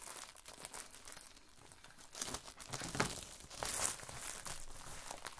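Quilting fabric being handled and cut with scissors: rustling and crinkling with scattered sharp snips and clicks, the loudest about three seconds in.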